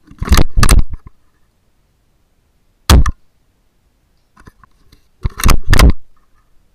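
Shots from a CZ .22LR rifle: three sharp, loud reports, near the start, about three seconds in and about five and a half seconds in. The first and last each come as a double crack about half a second apart.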